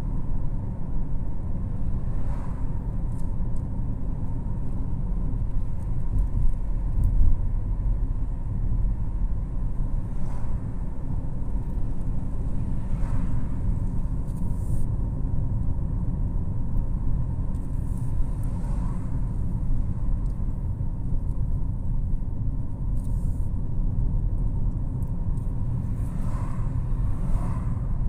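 Car driving along a road: a steady low rumble of engine and tyre noise heard from inside the cabin.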